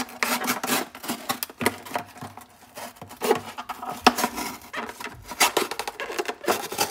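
A freshly sharpened Cuisinart kitchen knife slicing through a cardboard box: a dense, irregular run of scratchy crackles and scrapes as the blade cuts the card.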